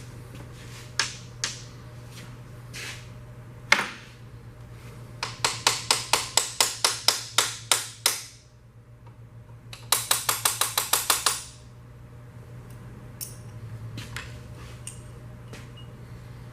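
Socket ratchet clicking in two quick runs of even clicks, about five to six a second, while a fastener is turned on a 1950 Mercury engine being taken apart, with a few single tool knocks before them. A steady low hum runs underneath.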